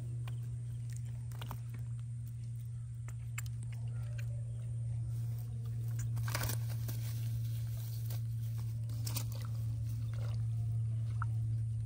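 A steady low hum, with a few brief crunching rustles about six and nine seconds in as a freshly caught fish is unhooked and handled into a mesh net bag.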